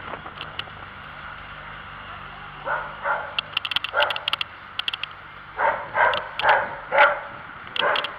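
A dog barking several times in short, sharp barks, thickest a little past the middle, over road and wind noise.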